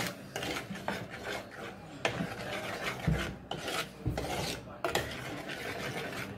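Metal spoon stirring jaggery into ginger curry in an unglazed clay pot, scraping again and again against the pot's rough inner wall in a series of irregular strokes.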